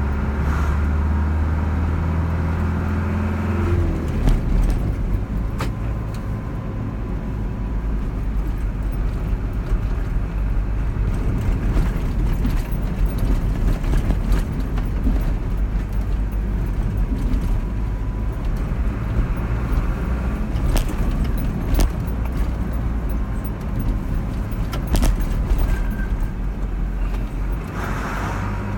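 Car driving on the road: steady engine hum and tyre rumble, with a change in the engine note about four seconds in and occasional light clicks and rattles.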